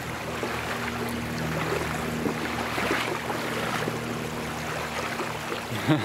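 Stream water rushing and splashing around a man's legs as he wades across against the current, with a steady low hum underneath.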